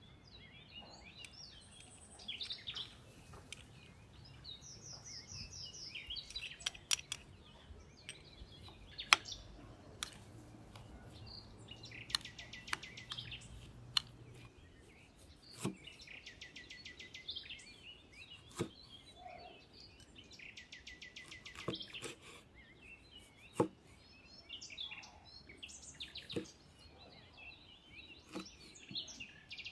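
Birds calling in repeated runs of rapid high chirping notes, over sharp clicks and taps of a metal spoon against a ceramic bowl as chopped chilli, garlic and shallot are mixed. Near the end, a knife cuts through limes onto a wooden chopping board.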